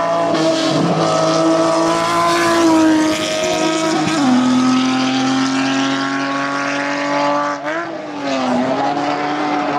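Datsun 280Z race car's engine running hard at high, steady revs. Its pitch drops about four seconds in, then dips and rises again near the end.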